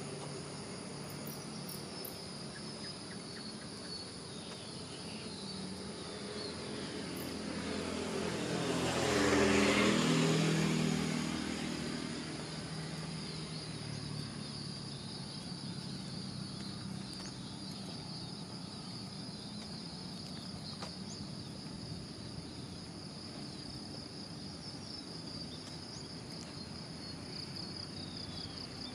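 A motor vehicle passes by, swelling to its loudest about ten seconds in and then fading, over steady insect chirring.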